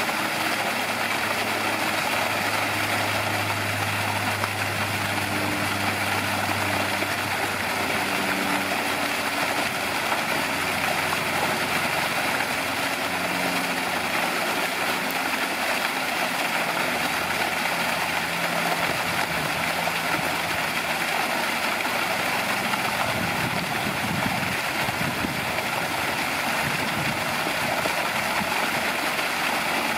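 Steady machine-like drone, with a low hum underneath that shifts in pitch every few seconds.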